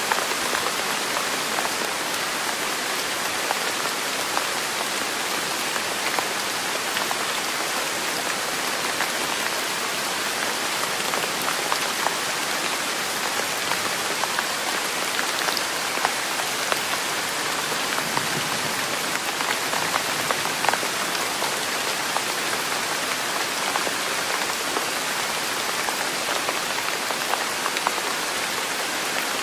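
Steady rain falling on a surface, a continuous hiss with many small, sharp drop ticks scattered through it.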